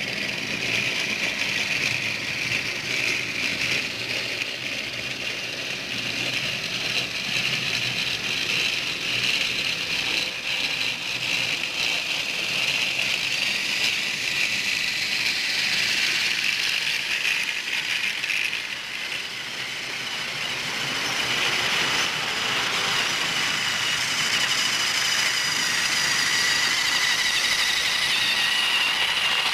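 Battery-powered Thomas & Friends toy trains running on plastic track: a steady whir and rattle of their small motors, gears and wheels, a little louder in the second half as the trains pass close by.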